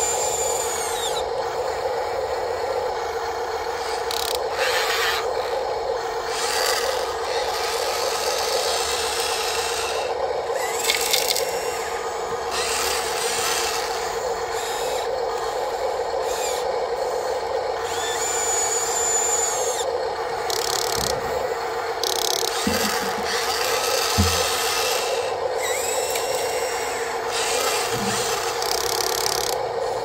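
Small electric gear motors of radio-controlled model excavators whining steadily as the arms and bucket work, with the bucket scraping through a pile of dirt and a couple of dull knocks about three quarters of the way through.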